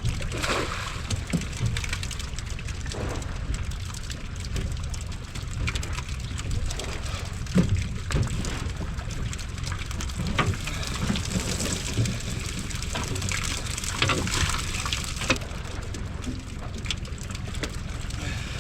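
Water splashing and trickling, with a few sharp knocks scattered through it.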